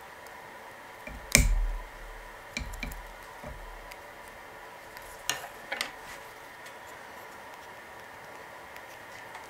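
A wooden arrow shaft and small parts being handled on a wooden workbench: a loud knock about a second in, a few lighter knocks after it, and two sharp clicks around five seconds in, over a faint steady high hum.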